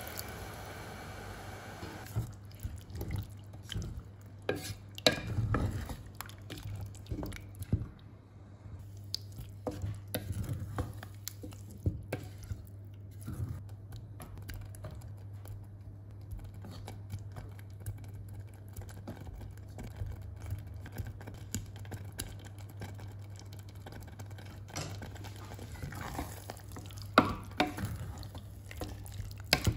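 Kitchen cooking sounds: a utensil stirring and clinking against a pan in scattered knocks, over a steady low hum.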